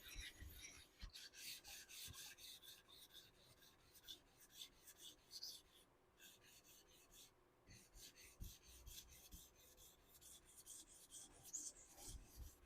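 Vintage L. Holzheuer & Sons straight razor stroked back and forth across a sharpening stone: faint, quick scraping strokes, several a second, with short breaks about six and seven and a half seconds in.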